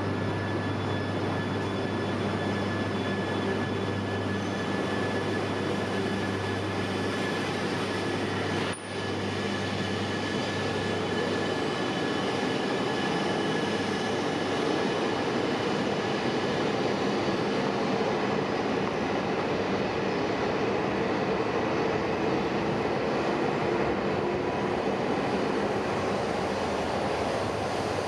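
Tohoku Shinkansen train, an E3 series set coupled to an E5 series, pulling out of the platform and running past at increasing speed: a steady rolling rumble and running noise, with a brief dip about nine seconds in.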